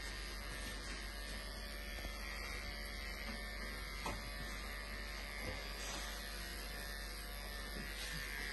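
Electric pet clippers running with a steady buzzing hum as they shave the fur on a dog's foreleg, with a few faint clicks.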